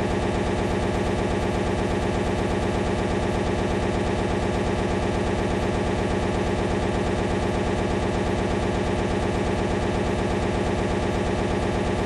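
A loud, perfectly unchanging buzzing stutter: a short scrap of audio repeating rapidly over and over, the glitch of a frozen recording.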